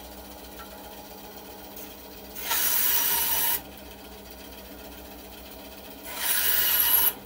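Metabo BAS261 bandsaw running with a steady motor hum, its blade cutting through a soft board twice: about a second of loud cutting noise a little over two seconds in, and again near the end.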